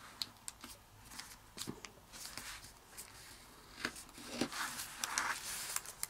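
Thin origami paper (kami) being folded and creased by hand: soft rustles, crinkles and short scrapes, scattered and irregular.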